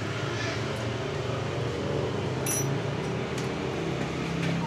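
Metal lathe running with a steady mechanical hum, with a few light metallic clicks about halfway through and near the end.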